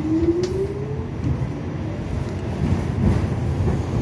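New York City subway Q train heard from inside the car as it runs along the track: steady low rumble and rail noise, with a short rising whine in the first second.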